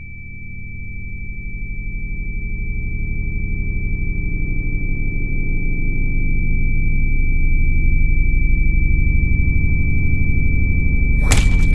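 Film sound design: a steady high-pitched ringing tone over a low drone that swells steadily louder, with a sharp hit near the end.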